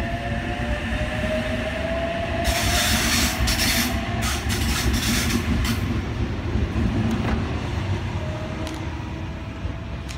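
Sydney Trains OSCAR (H set) electric train pulling out and accelerating past, with a faint motor whine rising slowly in pitch. From about two to six seconds in there is a loud stretch of rushing noise and wheel clatter, and the sound fades near the end as the last car leaves.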